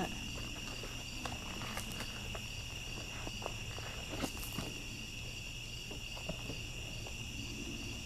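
Steady night chorus of crickets: a continuous high trill with a faster pulsing note above it, and a few faint clicks close by.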